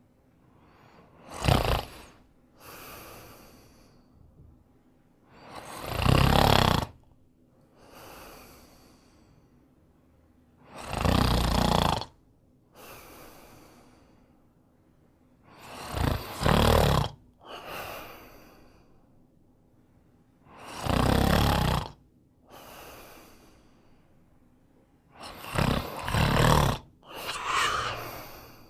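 Snoring in deep sleep: a loud snoring breath about every five seconds, each followed by a quieter breath, with two close together near the end.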